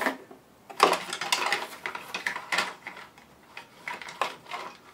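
Hard plastic parts of a dismantled coffee-machine brew unit clattering and knocking together as they are handled and picked out of a box. It is a quick run of rattles and clicks, starting with a burst about a second in and thinning out to scattered knocks.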